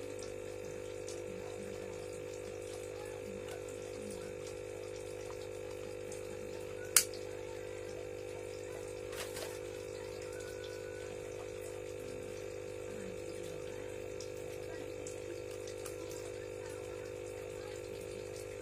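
Plastic hamster-cage tube sections and connector rings being handled and fitted together: one sharp click about seven seconds in and a couple of faint knocks about two seconds later, over a steady low hum.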